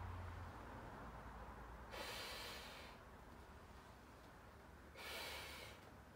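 A person blowing up a 16-inch latex balloon by mouth: two quick, hissing intakes of breath, about two and five seconds in, between quieter breaths blown into the balloon.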